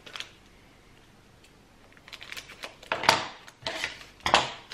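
Packaging rustling and crinkling as a small notepad is unwrapped by hand, in a few short bursts that start about halfway through.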